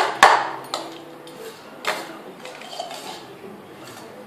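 Clinks on a steel plate as a toddler eats from it: one sharp clink just after the start, then a few fainter knocks over the next two seconds.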